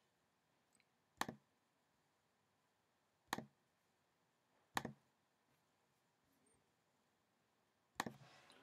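Four single clicks of a computer mouse, one to three seconds apart, against near silence: folders and a file being selected and opened in a file dialog.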